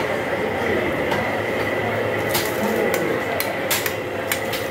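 Busy meat-market din: a constant murmur of voices and clatter, with a handful of sharp clinks and knocks from butchers' knives and cleavers in the second half.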